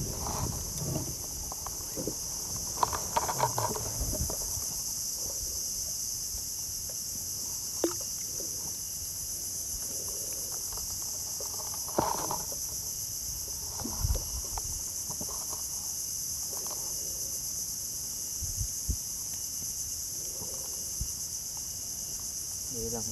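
A steady high-pitched insect chorus, with a few sharp knocks and clicks from fishing tackle being handled in a small boat.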